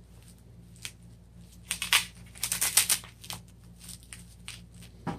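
Hook-and-loop strap on a Razor wrist guard being peeled open and pressed shut: short rasping rips, bunched in two quick clusters about two and three seconds in, with a few lighter ticks between.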